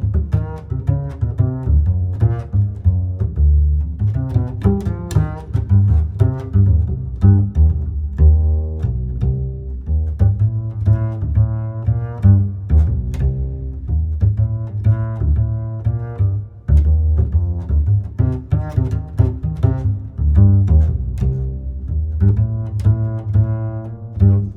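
Instrumental background music with a deep bass line and many short, quick notes in a steady rhythm.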